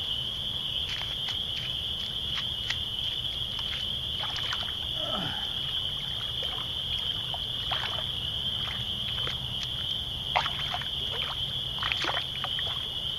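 Steady, high-pitched trilling of insects, with scattered splashes and knocks of water being scooped and thrown.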